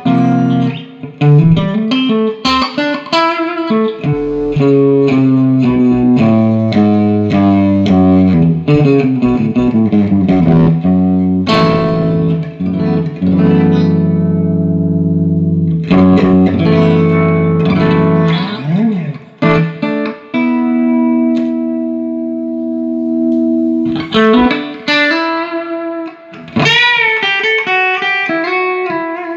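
Electric guitar played through a Fender Pro Reverb silverface amp, serviced and with a hole in its speaker cone repaired. Picked single notes and chords, with two long-held chords in the middle of the passage, a bent note between them, and quicker phrases near the end.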